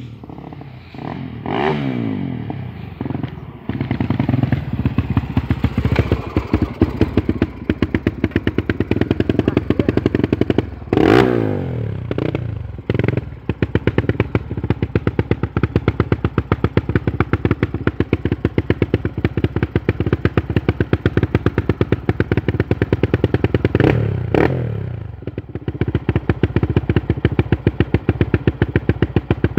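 Honda Tornado single-cylinder four-stroke motorcycle engine, enlarged to 290cc, idling with a loud, even, pulsing beat. It is revved up and let fall back three times in short blips.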